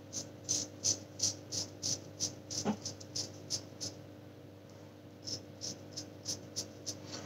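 Short strokes of a replaceable-blade straight razor cutting stubble on the chin, a dry scraping rasp about three times a second, with a brief pause about four seconds in before the strokes resume.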